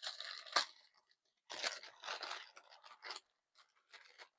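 A small striped gift bag being opened and handled: crinkling and rustling in irregular bursts, with a pause about a second in and a few faint scattered crackles near the end.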